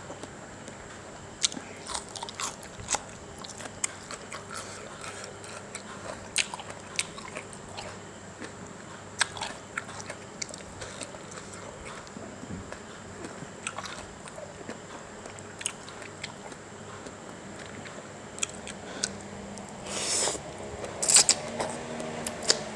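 A person chewing and crunching a spicy instant-noodle salad (yum mama) close to the microphone, with scattered sharp clicks and smacks. About twenty seconds in there is a brief louder burst of noise and a few sharper clicks.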